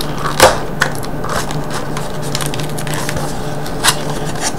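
Small cardboard box handled and turned over in the hands, giving a few short scrapes and taps, the loudest about half a second in, over a steady low hum.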